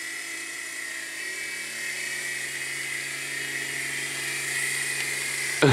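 Opal mini RC helicopter in flight: its small electric motors and rotors whir in a steady high-pitched whine that wavers slightly in pitch.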